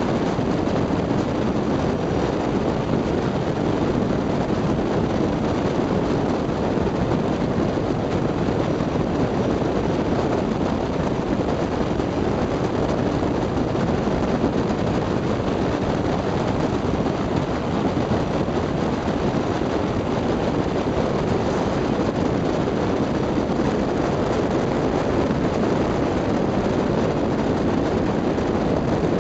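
A jet boat under way, its engine running steadily, with wind buffeting the microphone; the noise stays even throughout.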